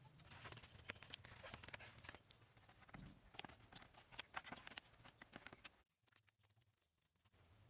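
Faint, irregular taps, clicks and scrapes of hand building work, broken about six seconds in by a second or so of near silence.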